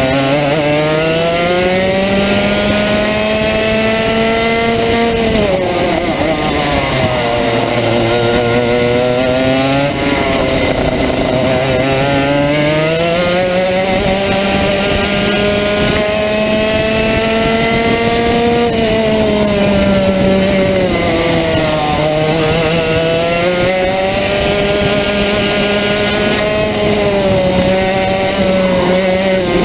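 Rotax Max 125 cc single-cylinder two-stroke kart engine at racing speed, heard from on board. Its pitch climbs steadily as the kart accelerates and falls sharply each time the driver lifts off for a corner, three times, before climbing again.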